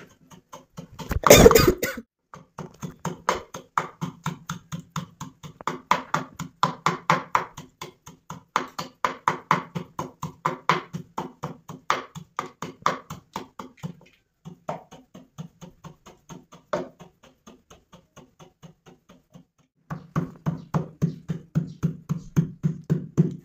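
Wooden pestle pounding a dry white powder in a wooden mortar: steady rhythmic thuds, about three a second, with a hollow wooden ring. There is a loud bump about a second in, and the strokes thin out to a few between about 14 and 20 s before picking up again.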